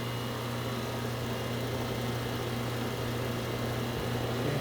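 Goodman air conditioner's outdoor unit running with a steady low hum from its compressor and condenser fan while it is charged with R22 refrigerant, low on charge from a leak.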